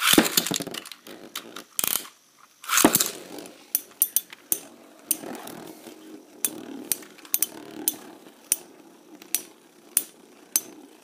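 Beyblade ripcord launches ripping twice, at the start and about three seconds in. Two metal-wheeled Beyblades then spin in the stadium with a steady whir and many sharp clicks as they clash.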